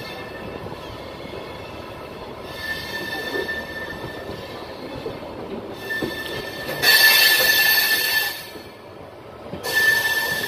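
Train wheels squealing against the rails as the Duronto Express coaches take a curve: a high steady squeal that comes and goes in three spells, loudest around the middle, over the steady running rumble of the train.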